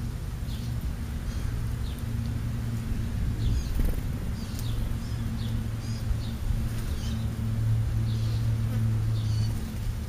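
A buzzing insect close by makes a steady low drone that drops away and returns every few seconds. Over it, small birds, sparrows, give short high chirps again and again.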